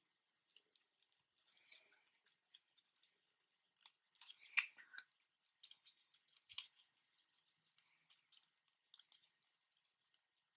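Faint, sparse crinkling and crackling of a folded paper origami model being pinched and curled by fingers, with a short busier stretch about four to five seconds in.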